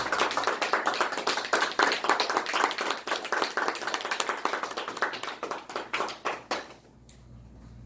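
A small group of people applauding with hand claps, the clapping thinning and dying away about seven seconds in.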